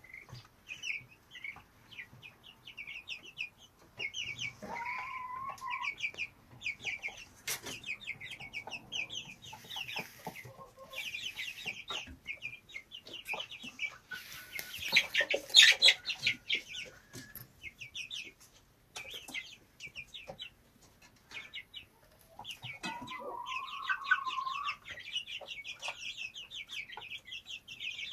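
Chickens in a coop: chicks peeping in quick, almost continuous high chirps, with hens clucking. A hen gives a longer drawn-out call about five seconds in and again near the end. There is a louder, harsher burst around the middle.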